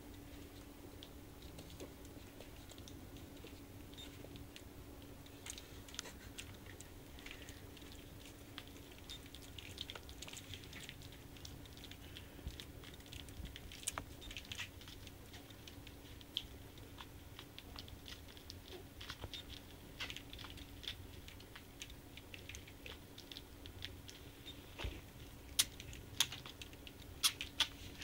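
Puppies play-biting and mouthing each other: scattered small clicks, nibbling and rustling against soft bedding, with a few sharper clicks near the end, over a steady low hum.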